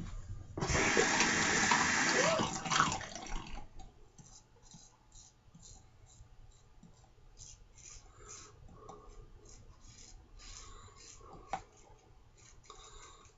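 A tap runs into a sink for about three seconds, then shuts off, leaving faint short scraping strokes.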